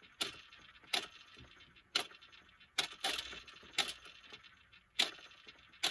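Sharp plastic clicks about once a second from the Mattel Dino Alive Aladar toy dinosaur moving inside its plastic egg, knocking against the shell as it tries to hatch.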